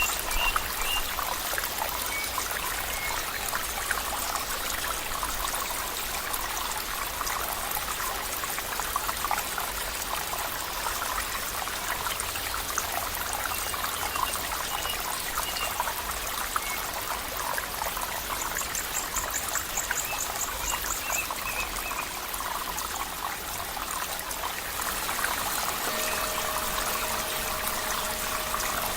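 Water trickling in a small stream, a steady rush with a few faint high chirps. A low steady tone joins near the end.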